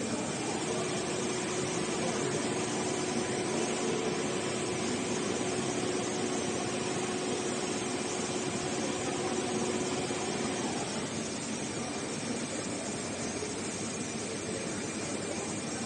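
Roll-to-roll heating wire sewing machine running steadily: a continuous whirring noise with a constant hum that stops about eleven seconds in.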